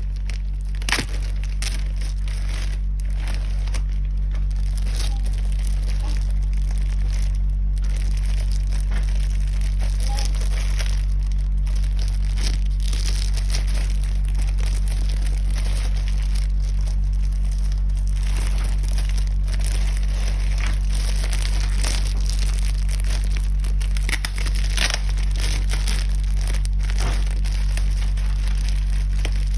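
Packaging being handled and torn open, with crinkling and rustling in short irregular bursts over a steady low hum.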